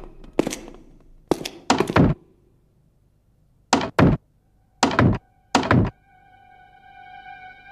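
Short sharp knocks, mostly in close pairs, about eight in all. Then from about six seconds in, a steady pitched tone with overtones sets in and slowly grows louder.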